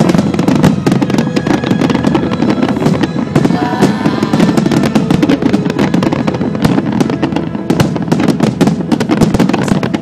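A fireworks barrage: many shells firing and bursting in rapid, unbroken succession, a dense mass of bangs and crackles over a constant low din.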